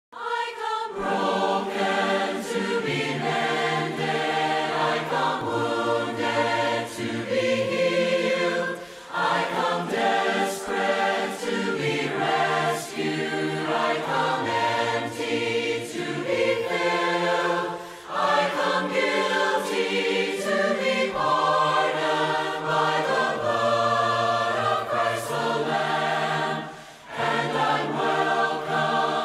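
Choir singing slowly in long held chords, pausing briefly between phrases about every nine seconds.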